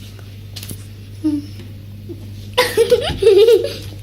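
A person laughing in a short run of quick bursts, starting about two and a half seconds in, after a brief faint vocal sound a second earlier.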